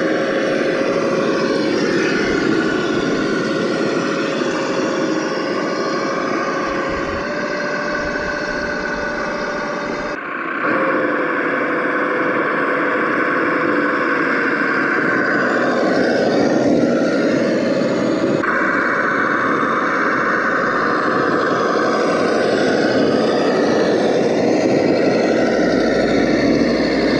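Simulated engine sound from a Sense Innovations ESS Dual Plus sound unit, played through the speakers of a Traxxas TRX4 RC crawler, revving up and down as the truck crawls. The sound dips briefly about ten seconds in.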